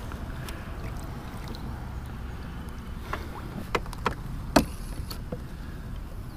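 Handling noise while a small largemouth bass is reeled up and swung out of the water on a spinning rod: a steady low rumble with a few sharp clicks and knocks about halfway through, the loudest a little after the middle.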